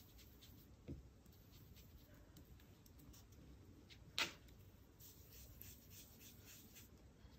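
Faint scratchy dabbing of a small ink blending brush through a stencil onto cardstock, with a soft knock about a second in and a short, louder scrape about four seconds in as the brush is loaded on the ink pad.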